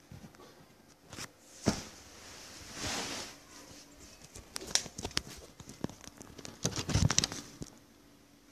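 Phone handling noise: fingers and fabric rubbing and rustling against a hand-held phone's microphone as it is moved around, with scattered knocks. There is a sharp knock a little under two seconds in, and a dense cluster of knocks and rubbing about seven seconds in.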